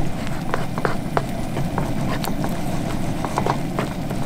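Cream sauce simmering and bubbling in a pan, with irregular small pops over a steady low rushing sound.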